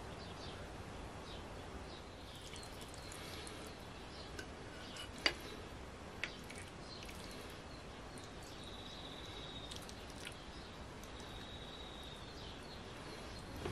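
A serving spatula clicks twice against a ceramic platter, about five and six seconds in, over low steady room noise with faint high bird chirps.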